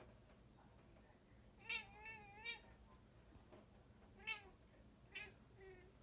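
A Bombay cat chirping at birds outside the window: one longer warbling chirp about two seconds in, then two short chirps. This is a cat's excited chatter at prey it can see but not reach.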